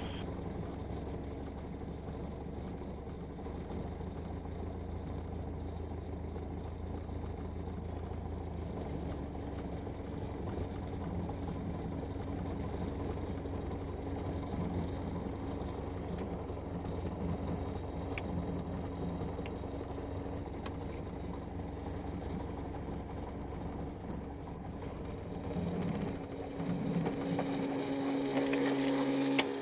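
Piper PA-28-180's four-cylinder Lycoming engine running steadily at low taxi power, heard from the cockpit; it comes up slightly in the last few seconds.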